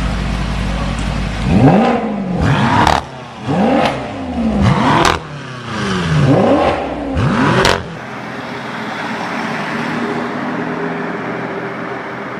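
A supercar engine is revved hard about five or six times in quick succession, each rev rising and falling in pitch. It then settles back to a steady idle.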